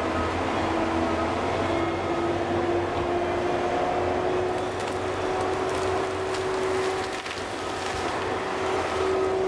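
Caterpillar 573C feller buncher's C7.1 diesel engine running under load as the machine moves, with a steady whine that slowly climbs in pitch. A few faint cracks and knocks sound about halfway through.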